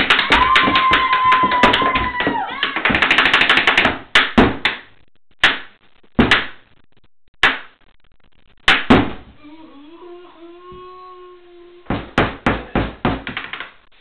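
Hammers and a mallet banging on a table as improvised percussion. A fast run of strikes under a long, high held note for the first four seconds, then single strikes about a second apart, a faint held note around ten seconds in, and another quick run of strikes near the end.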